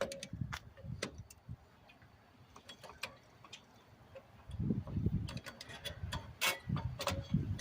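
Scattered metallic clicks and clinks of tools and brake-shoe hardware being worked by hand on a drum brake while a return spring is being fitted. From about four and a half seconds in, a low rumble joins the clicks.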